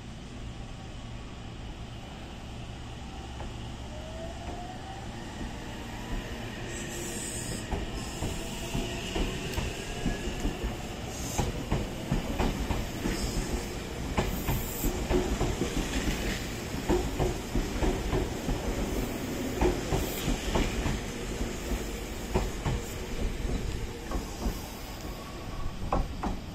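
Meitetsu electric express train pulling out of the station: its motor tone rises in pitch as it starts. The wheels then click over rail joints and points in a quickening, irregular rhythm as the cars pass and the train picks up speed.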